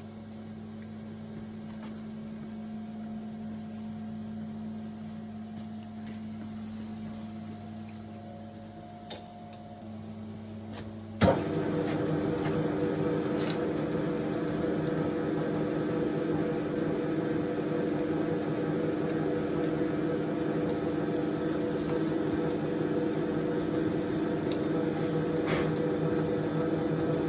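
Milling machine running steadily through a trial cut in the workpiece. About eleven seconds in, a sharp click comes, and the running sound turns louder and busier, with a different steady hum.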